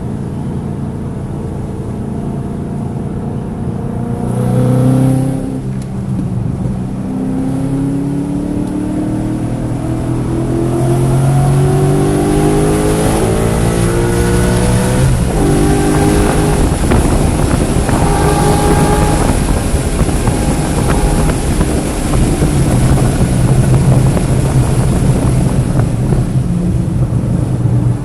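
Car engine at full throttle on a race track, its pitch climbing as it revs out and dropping sharply at a shift about halfway through, then climbing again. The engine is running with misfires in cylinders 1, 3 and 4.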